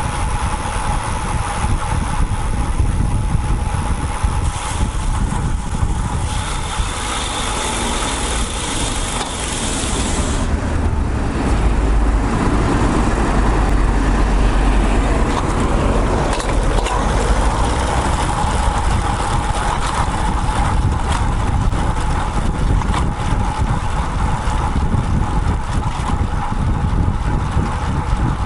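Ride noise picked up by a camera mounted on a road bike moving in traffic: a steady rumble of wind on the microphone and road noise, with motor vehicles passing. A heavier low rumble swells about twelve seconds in and eases off a few seconds later.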